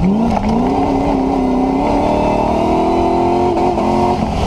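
A Land Rover's 4.6-litre V8 engine under hard acceleration. Its pitch dips briefly at the start, climbs steadily, then falls away sharply about four seconds in.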